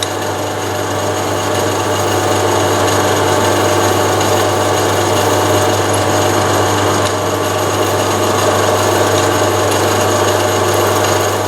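Metal lathe running steadily while drilling a hole through a metal block held in its four-jaw chuck, a constant motor and gear hum with cutting noise. It stops abruptly at the very end.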